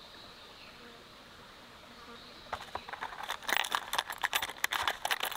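Metal jig heads, hooks and lures clicking and rattling in a clear plastic tackle box as a hand sorts through its compartments, starting about halfway in. Before that only a faint steady high insect buzz.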